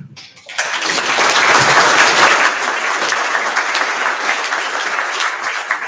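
Audience applauding, building quickly about half a second in and holding steady to the end.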